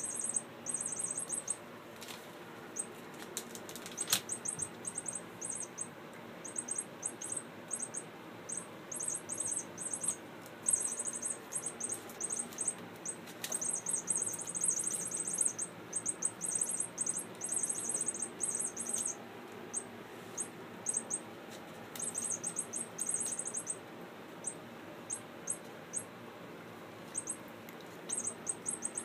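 Kittens scuffling and playing on blankets and crumpled paper, making stop-start rustling and crinkling with a few light knocks.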